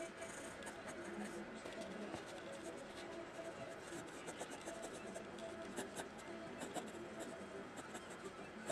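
Graphite pencil scratching on paper in many short, irregular sketching strokes.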